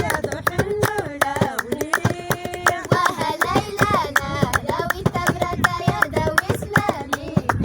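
Singing to a fast, steady beat of hand clapping.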